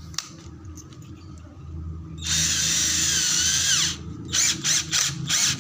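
Benz Werkz BZ-8004 cordless drill motor run for about a second and a half while its keyless chuck is held and tightened onto a new bit, the whine dropping in pitch as the chuck clamps down, then four quick blips of the trigger.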